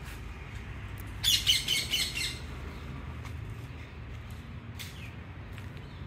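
A parrot calling in a quick run of high-pitched squawks lasting about a second, with a fainter single call later. A low steady hum runs underneath.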